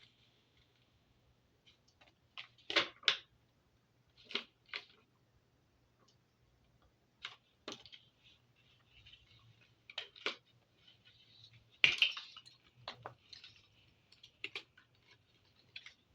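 Small hard parts of a boys' belt and its packaging being handled: scattered clicks and light knocks, some in quick pairs. Soft rustling comes in about halfway through.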